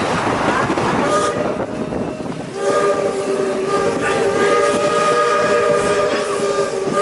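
Steam locomotive's chime whistle sounding one long blast of several tones held together, starting about two and a half seconds in, over the noisy running of the train.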